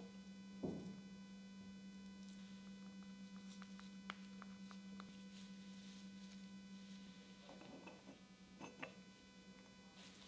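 Near silence: a steady low electrical hum, with a soft knock about a second in and a few faint clicks of small metal chuck parts being handled.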